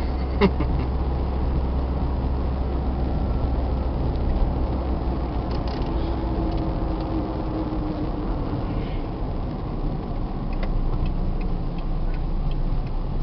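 A car driving on a rough, sandy road, heard from inside the cabin: a steady low rumble of engine and tyres. There is a knock about half a second in and light rattles near the end.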